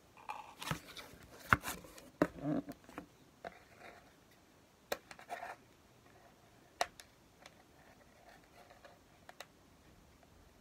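Cardboard box and its packaging being handled and pried at to free a Breyer model horse: scratching and rustling with scattered sharp clicks, the loudest about a second and a half in.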